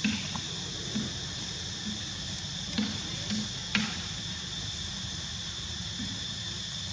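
Steady high-pitched drone of a chorus of insects, with a few short clicks and knocks in the first four seconds.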